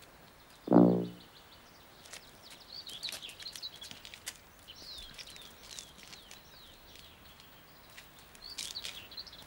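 Small birds chirping and twittering faintly in short sliding calls, in two spells. About a second in comes a single short, low pitched note, the loudest sound in the stretch.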